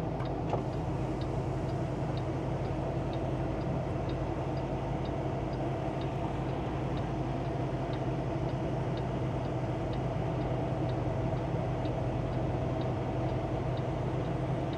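Diesel truck engine running steadily, heard from inside the cab while rolling slowly, with a light tick repeating about twice a second throughout.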